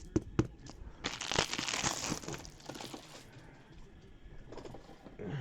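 Plastic trading-card packaging crinkling as it is handled, after a few sharp clicks at the start.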